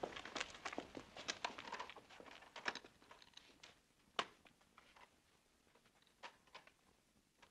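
Faint scattered clicks and taps, close together at first and thinning out, with one sharper knock about four seconds in.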